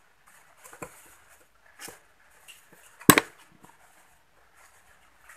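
A metal tool knocking against a Yamaha V80 engine's crankcase: a few light taps, then one much louder knock about three seconds in.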